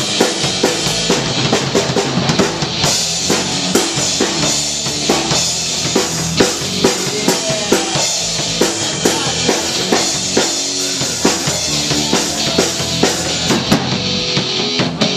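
Live rock band playing loudly: electric guitar, electric bass and a drum kit, with the drums the most prominent part and hitting a steady beat.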